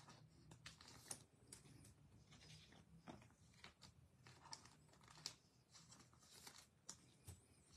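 Faint, scattered soft clicks and rustles of baseball trading cards being flipped through by hand.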